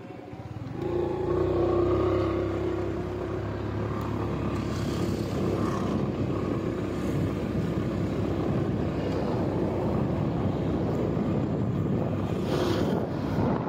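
A motor vehicle's engine running steadily, starting up loudly about a second in.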